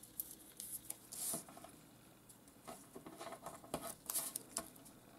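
Double-sided tape handled off its roll and pressed onto narrow cardstock strips: faint rustling and light taps of paper and tape, with a short rasping strip of sound about a second in.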